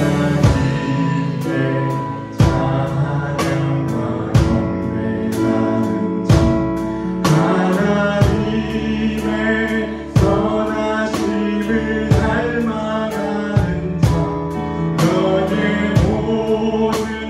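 Sung gospel worship song with a drum kit played along, a strong drum hit about every two seconds and lighter strokes between.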